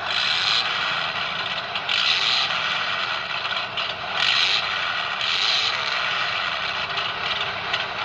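HSP Pangolin RC crawler's drivetrain running, a scraping, clattering mechanical noise that swells and eases repeatedly.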